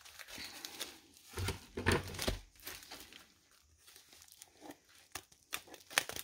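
Plastic bubble mailer crinkling and rustling in the hands while it is cut open with scissors: irregular crackles, a few louder ones about a second and a half in and near the end.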